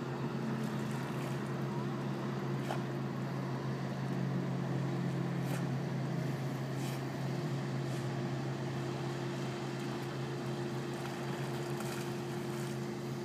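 A steady, low engine drone holding the same few low pitches throughout, with a few faint ticks over it.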